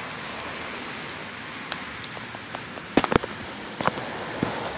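German Shepherd lapping water from a stainless steel bowl: a run of wet clicks and splashes, loudest in a quick cluster about three seconds in, over a steady outdoor hiss.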